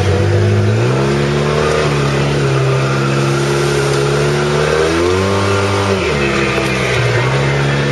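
2008 Polaris RZR side-by-side's twin-cylinder engine running under way on a dirt trail. Its pitch climbs about a second in, holds steady, rises again about five seconds in and drops back down about a second later.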